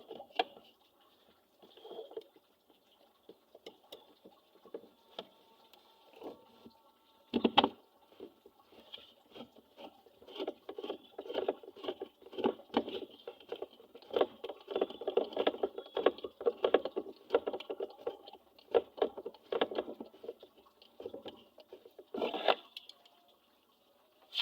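Hand work on a washing machine gearbox: irregular metallic clicks, knocks and rattling as parts are handled. There is a sharp louder knock about seven seconds in and another near the end, with a busy stretch of rattling in the middle.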